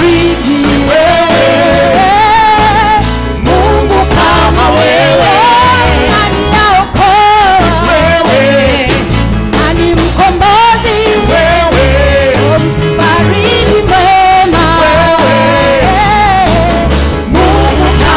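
Live church worship band and singers performing a Swahili praise song: several voices singing the melody over keyboard, bass and a steady drum beat.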